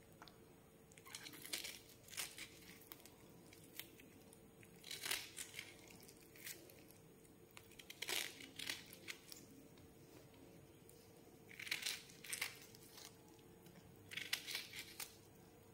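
Small knife cutting through the thick rind of a squeezed galgal (hill lemon) held in the hand, faint short crunching cuts coming every couple of seconds.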